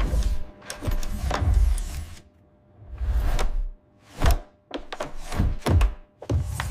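A run of about eight heavy mechanical clunks with a deep low end, irregularly spaced, as armour panels lock onto a humanoid robot's legs.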